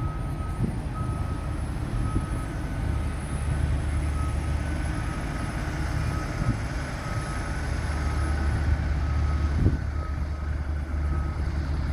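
Heavy construction machinery: a steady low engine rumble, with a reversing alarm beeping at an even pace and a few brief knocks.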